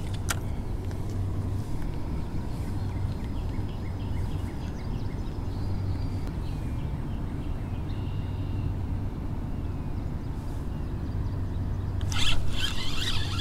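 Steady low rumble with faint high chirps over it; about twelve seconds in, a burst of loud clicks and scraping.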